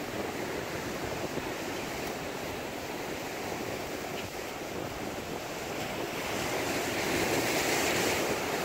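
Ocean surf breaking and washing over rocks, with some wind on the microphone; the wash swells louder near the end.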